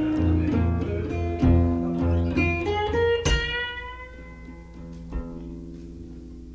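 Blues guitar break: picked notes and short phrases over repeating low bass notes. A bright note struck about three seconds in rings out and dies away, and the playing is quieter after it.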